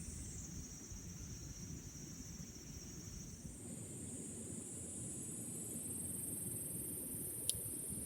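Steady high-pitched chirring of insects, stepping up in pitch a little over three seconds in, over a low outdoor rumble. One sharp click near the end.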